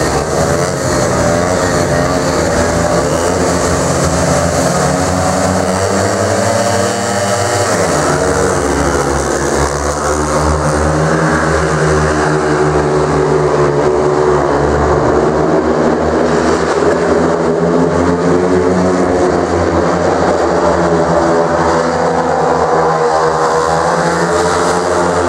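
Several speedway motorcycles with 500 cc single-cylinder engines racing together at high revs. The pitch climbs, then drops sharply about eight seconds in, and the engines carry on running hard and unevenly as they go round the track.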